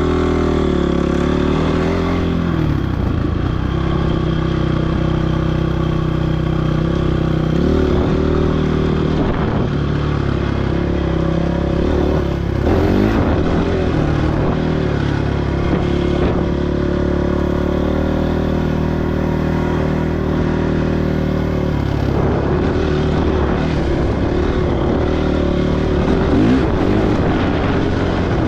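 Dirt bike engine running while riding a trail, its pitch falling about two seconds in and climbing again around eight seconds as the throttle is eased and opened.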